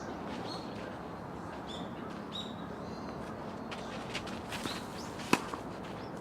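Small birds chirping in short calls, then a single sharp knock of a tennis ball being struck by a racket about five seconds in, with a few fainter knocks just before it.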